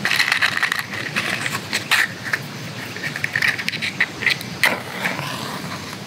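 Matchbox handled close up: a run of small clicks, rattles and scrapes as the box is opened, a match taken out and a match drawn across the striking strip, with several sharper scratches along the way.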